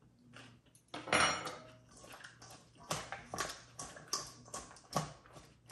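Utensil clinking and scraping against a mixing bowl as dressed cabbage, carrot and jicama slaw is scooped up to taste: irregular sharp taps, the loudest about a second in, then a quicker run of clinks from about three seconds in.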